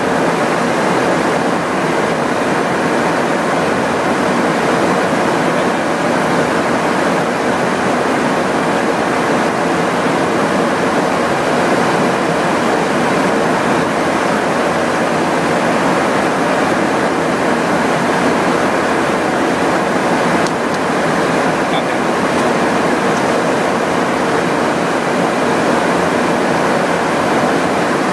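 Steady rushing noise of airflow and engines in a KC-135 tanker in flight, heard from the boom operator's position, with a faint steady hum under it.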